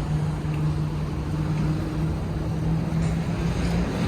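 Street traffic noise with a steady low engine hum that fades out shortly before the end.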